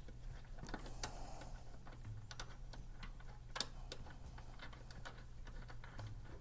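Faint, irregular small clicks and light scraping as gloved hands thread a bolt into the oil catch can's metal bracket by hand, with one sharper click about three and a half seconds in.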